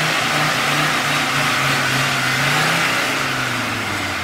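Off-road vehicle's engine running under load, its revs rising and falling and easing off near the end, over a steady hiss.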